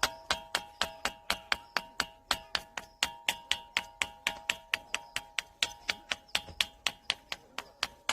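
Ringing rocks (bell-sound stones) being struck rapidly, about four or five strikes a second, each hit giving a sharp clink over a lingering bell-like ringing tone.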